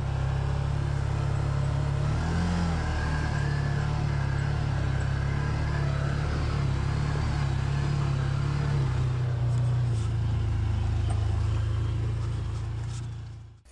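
Side-by-side UTV engine running at low, steady revs as the machine crawls along a rough, rutted trail. It fades out near the end.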